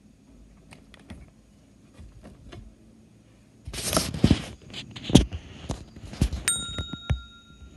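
Handling noise: after a quiet start, a cluster of knocks, bumps and rubbing as a phone and the glass-topped bathroom scale are moved about, with a few faint clicks earlier. Near the end a faint steady high electronic tone comes in suddenly.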